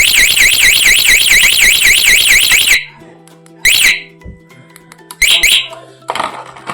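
Motorcycle alarm siren sounding a fast rising-and-falling warble for nearly three seconds, then cutting off suddenly. It then gives two short chirps about a second and a half apart.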